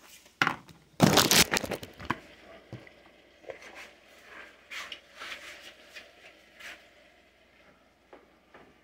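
Handling noise as the phone is moved and set down: a knock, then a loud cluster of rubbing and clattering knocks about a second in, followed by scattered light clicks and taps.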